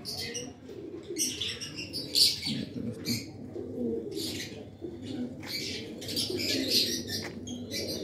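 Lovebird chick making repeated short raspy begging calls while it is hand-fed from a syringe, with pigeons cooing in the background.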